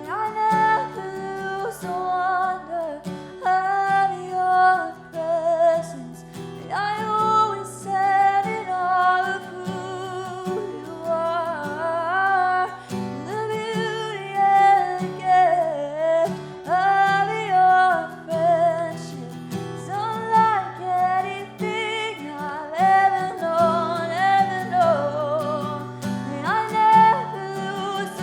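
A worship song: a solo voice singing a slow melody with vibrato over acoustic guitar chords.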